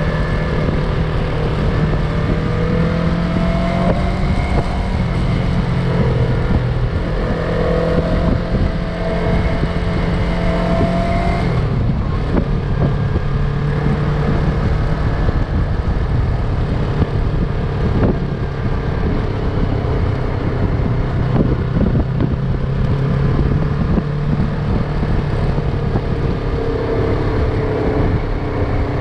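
Yamaha MT-03 motorcycle engine running while riding, with wind noise. Its note rises slightly, then drops to a lower, steady pitch about twelve seconds in.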